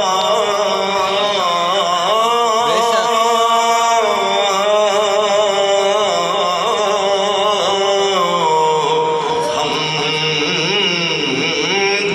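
A man's voice chanting a melodic Islamic recitation into a microphone, holding long notes with ornamented turns in pitch.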